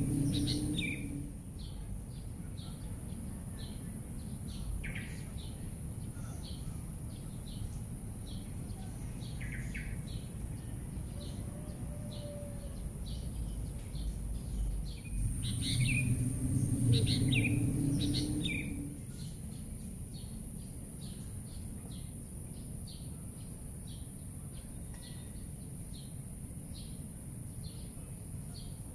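Small birds chirping, with short calls scattered throughout. A steady high hiss runs underneath, and a low rumble swells for a few seconds past the middle.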